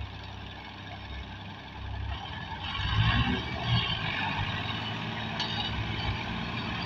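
Diesel farm tractor engines running hard under load while towing a heavily laden trailer; the engine note grows louder about two and a half seconds in and holds.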